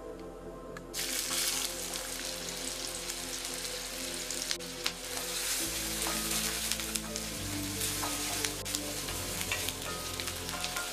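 Chopped onions hitting hot oil in a kadai and sizzling, starting suddenly about a second in, while a spatula stirs them with occasional clicks and scrapes against the pan. Soft background music plays underneath.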